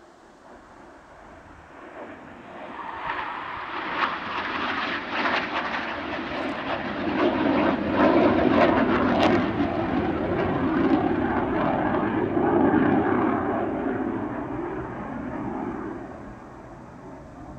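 Saab J32 Lansen jet making a flypast. Its engine noise swells over the first few seconds, peaks in the middle as a roar laced with sharp crackles, and fades away near the end.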